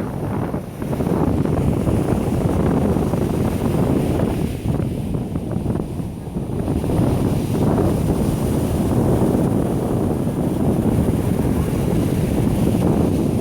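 Sea surf breaking and washing on a beach, heavily mixed with wind buffeting the microphone into a low rumble.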